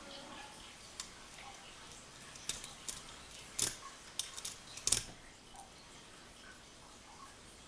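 Metal diamond lock pick clicking and scraping against the pins inside a six-pin lock cylinder while working a stubborn pin: scattered sharp clicks, thickest between about two and a half and five seconds in.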